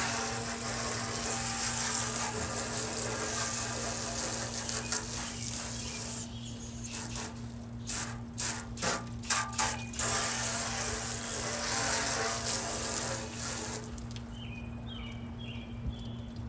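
Scrubbing a porcelain sink: a dense scratchy hiss of back-and-forth strokes that stops about fourteen seconds in. A steady low hum runs underneath.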